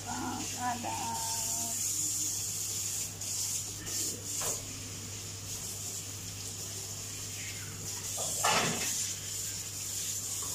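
Wooden spoon stirring and scraping thick lentil soup against the sides and bottom of a stainless steel pot, with one louder rub near the end and a steady hum underneath.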